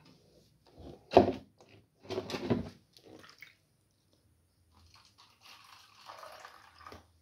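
Water sloshing in a plastic tub and pouring out of it into a small plastic cup as a betta is transferred. There are two louder handling noises, about one and two and a half seconds in, and a longer pour near the end.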